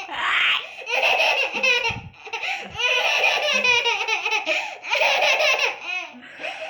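A baby laughing in several bouts of rapid, pulsing laughter, with short breaths in the gaps between them.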